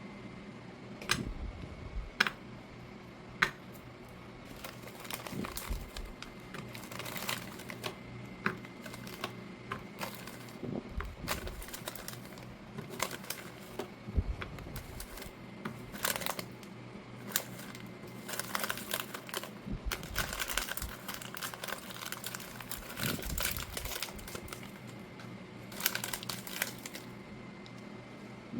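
Plastic cookie wrappers crinkling and rustling as packages are handled and opened, in irregular bursts, with a few sharp clicks or taps.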